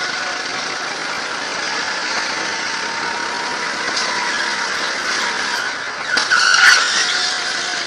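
Go-kart engine running steadily as the kart laps at speed, heard from the driver's seat with a lot of noise over it. About six seconds in there is a brief, louder squeal.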